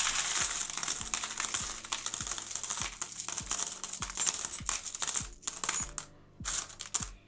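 Loose metal coins clinking and jingling as a hand rummages through a tub of mixed world coins, thinning out to a few separate clinks near the end.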